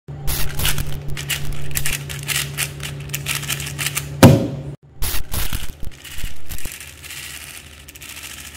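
A 4x4 speed cube being turned fast through a parity algorithm: rapid plastic clicking and rattling of its layers over a steady low hum. About four seconds in there is a short, loud low sweep. After it the clicking becomes a denser, continuous clatter, as of several turning cubes layered together.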